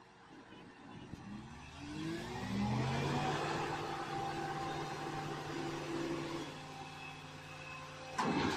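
A vehicle engine revs up, its pitch rising over about two seconds, then holds a steady run. A sudden loud noisy burst comes near the end.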